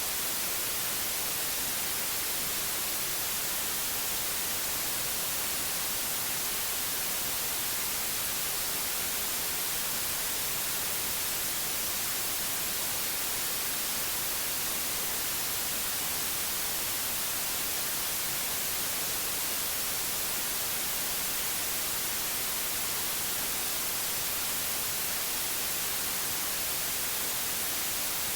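Steady white noise: an even, unbroken hiss, brightest in the high end, with no changes or events.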